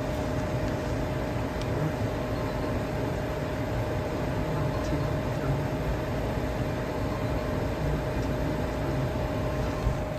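Goodman gas furnace's fans running steadily, a constant hum over an even whooshing rumble. The furnace is not firing: its board shows three blinks, which the technician reads as the pressure switch stuck open.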